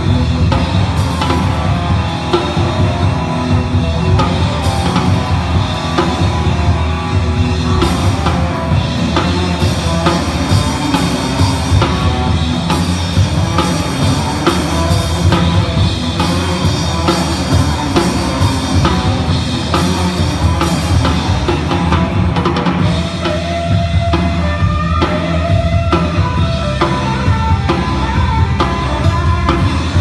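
Live rock band playing an instrumental passage: electric guitars over bass guitar and a drum kit, with melodic guitar lines moving through the middle range.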